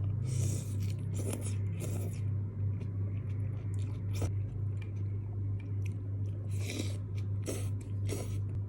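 Close-miked mukbang eating sounds of mie kocok noodle soup: chewing and biting, with short crisp, wet bursts in two clusters, a few near the start and a few near the end. A steady low hum runs underneath.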